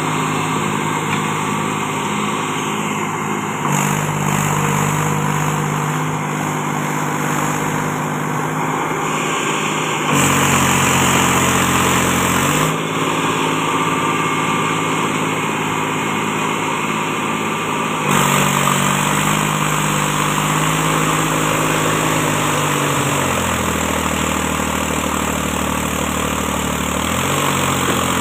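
Mahindra 275 DI tractor's three-cylinder diesel engine running with a loaded trolley in deep mud. Its pitch shifts several times and drops lower for a few seconds near the end.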